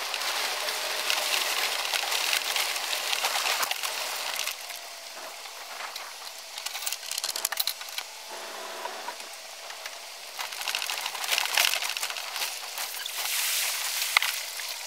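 Boat trailer rattling and its tyres crunching over gravel as it is towed, with crackling and sharp knocks throughout. The noise drops for several seconds while the trailer stands still, then picks up again as it is backed down the ramp.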